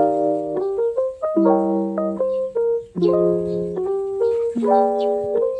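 Background music: light keyboard melody with chords changing about once a second.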